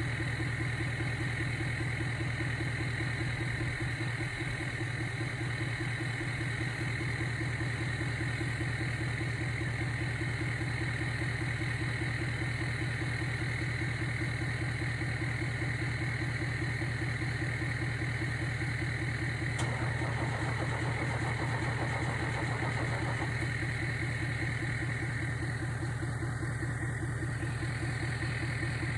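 1948 Thomas bus engine being turned over by the starter in a steady, fast rhythm without catching: the bus won't start.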